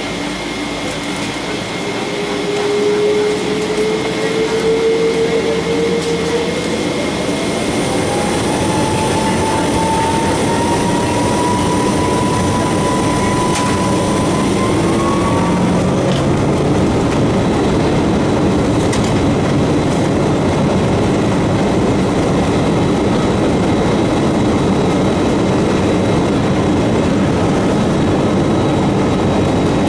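Boeing 777-200ER's Rolls-Royce Trent engines spooling up to take-off thrust: a whine rises steadily in pitch over about twelve seconds as the noise grows, then settles into a loud, steady roar.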